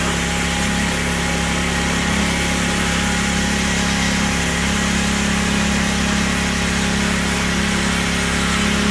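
Pressure washer running steadily, with the hiss of its spray jet hitting the truck's painted steel fender and wheel.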